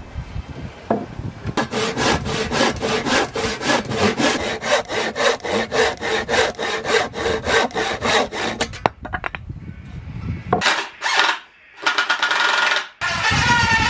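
Hand saw cutting through pallet-wood timber in quick, even back-and-forth strokes that stop after several seconds. A few shorter, different noises follow near the end.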